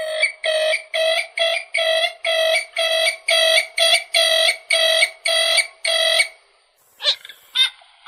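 Purple gallinule calling: a fast run of about twenty loud notes on one steady pitch, roughly three to four a second and slowing a little, that stops about six seconds in. A few separate single notes follow near the end.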